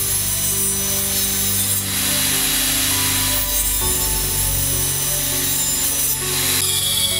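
Portable table saw running and cutting through a laminate flooring plank, a steady dense whir of blade in material, easing off near the end as the cut finishes.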